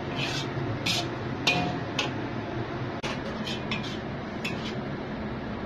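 A spatula scraping and clinking against a wok as fried udon noodles are tossed and lifted: a string of short, irregular scrapes, the loudest about a second and a half in, over a steady low background hum.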